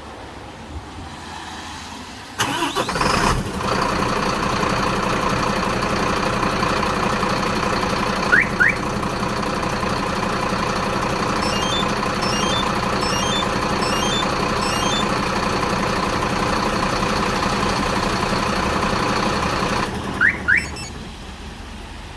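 Mercedes-Benz Actros truck's diesel engine remote-started: it cranks briefly and catches about two and a half seconds in, idles steadily, then shuts off near the end. A remote-start alarm gives two quick rising chirps after the start and again just after the shutdown.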